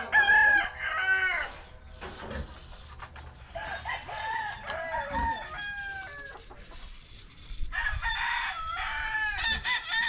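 Roosters crowing, several crows one after another with short gaps between them.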